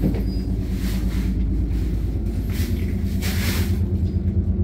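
Fishing boat's engine running with a steady low drone, with a few brief rushes of noise over it.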